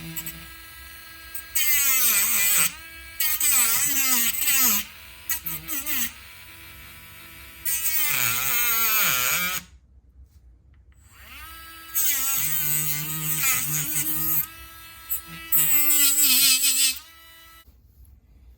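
Small handheld electric rotary tool cutting into a battery pack's plastic and cell connections. It runs in five bursts of one to two and a half seconds, and its whine sags in pitch each time it bites into the material and then recovers.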